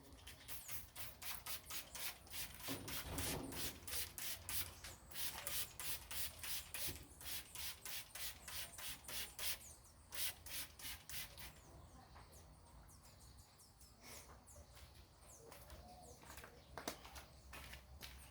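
Cleaning product being sprayed from a hand trigger spray bottle onto a washing-machine tub: quick repeated squirts, about three or four a second, for roughly ten seconds, then a few scattered ones.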